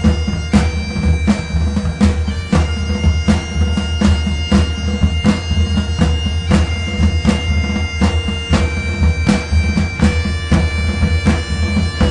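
Background music: a melody of long held notes over a steady low drone and a regular drum beat.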